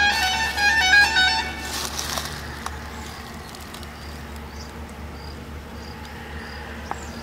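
A short melodic music jingle of quick stepped notes ends about a second and a half in. It leaves faint outdoor ambience: a low steady hum and faint high chirps repeating about twice a second.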